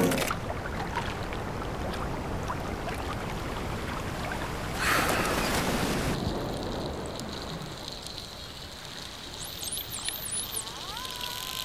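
Sea water rushing around swimming dolphins, with a louder surge of water about five seconds in. Near the end, dolphins whistle underwater: a run of quick, high up-and-down whistles and a lower rising whistle.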